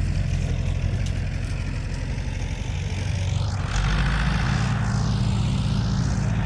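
Tractor engine running steadily while the tractor drives along. Its low note gets a little louder and fuller a few seconds in.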